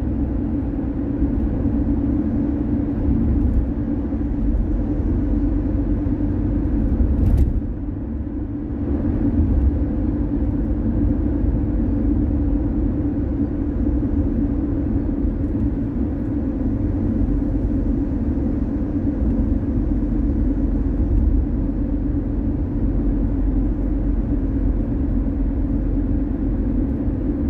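Car driving on a road: a steady low rumble of road and engine noise, with a short click about seven seconds in and a brief dip in level just after.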